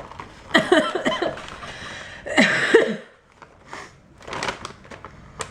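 A plastic snack bag crinkling as it is handled, with short non-word vocal sounds from a woman twice in the first three seconds, then quieter scattered rustles and clicks.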